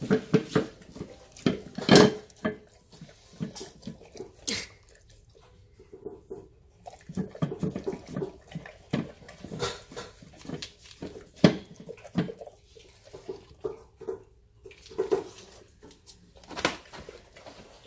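A dog eating hungrily from a stainless steel bowl: irregular wet chomping and licking, with the metal bowl knocking and ringing briefly as the muzzle pushes it around.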